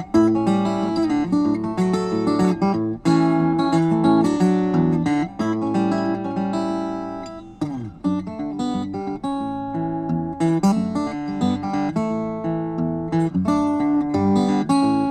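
Steel-string acoustic guitar played solo, a run of picked notes and chords with no singing. About halfway through the playing thins out and one low note slides down in pitch before the picking picks back up.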